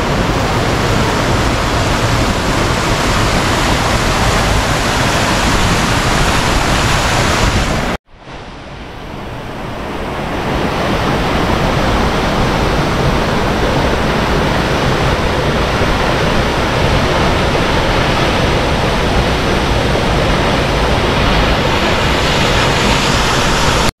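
Loud, steady rushing of a strong, heavy-flowing waterfall. The sound cuts out for an instant about eight seconds in, then swells back over the next couple of seconds.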